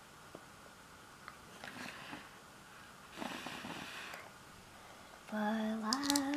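A short rush of breath about three seconds in, then a voice starts singing slow, held notes near the end.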